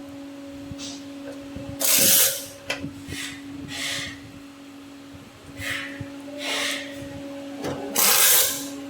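Short scraping and rubbing sounds of hand tools and parts being worked on a small device's casing, the loudest about two seconds in and near the end, over a steady low hum.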